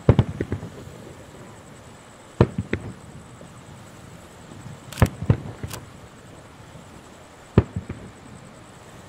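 Aerial firework shells bursting: sharp bangs in four clusters, at the start, about two and a half seconds in, about five seconds in, and about seven and a half seconds in, with a faint steady rush between them.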